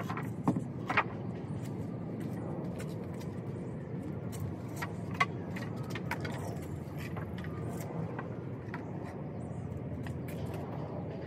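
Steady low rumble of a car driving, with scattered light clicks and jangling rattles; a few sharper clicks near the start and around the middle.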